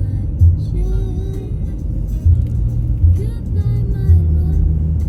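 Background music with a heavy bass and a sung or gliding melody line.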